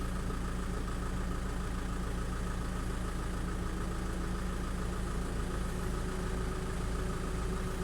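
Car engine idling steadily with the air-conditioning compressor engaged. A faint steady tone comes in partway through.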